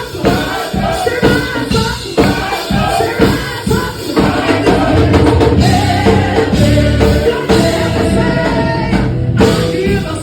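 Live church worship music: a band with drum kit playing and voices singing, with a steady beat and heavy bass.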